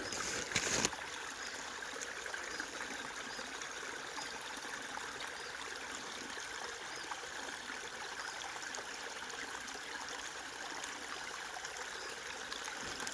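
Small stream flowing and trickling steadily over stones, with a couple of short knocks within the first second.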